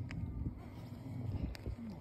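Footsteps on lake ice: two sharp clicks, one just after the start and one about a second and a half in, over a low wind rumble on the microphone.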